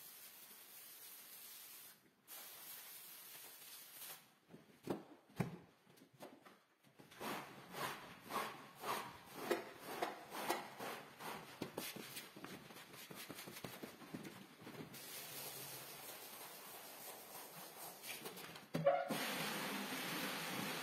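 Rubber squeegee strokes dragging water across a wet rug, about two a second, then a rotary floor scrubber switches on near the end and runs steadily.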